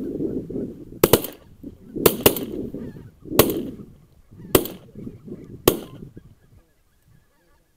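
A flock of geese honking overhead, then six shotgun shots at roughly one-second intervals, two of them in quick succession about two seconds in, each with a short echo. The honking dies away after the last shot.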